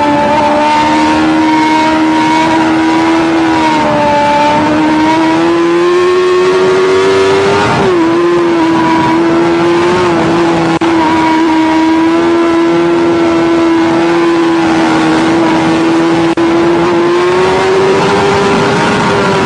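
Sport motorcycle engine running at high revs, heard from the rider's seat. The pitch climbs slowly, drops sharply at an upshift about eight seconds in, then holds and climbs again near the end.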